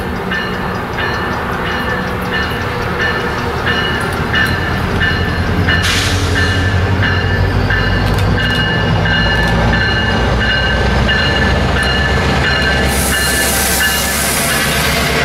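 Metrolink commuter train's diesel locomotive pulling in alongside the platform, its engine rumble growing louder as it comes close. A bell rings steadily, about two to three strokes a second, and there are two bursts of hiss, one about halfway through and one near the end.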